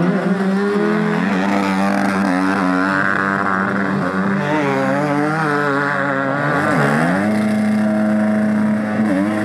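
Several dirt bike engines running together, revving up and down over a lower steady idle, as the bikes are worked through deep mud with their rear wheels loaded and spinning.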